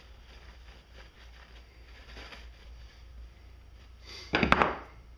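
Faint rustling of a shop rag being handled, then about four seconds in a brief, loud clatter of metal on the workbench as a hand tool is picked up.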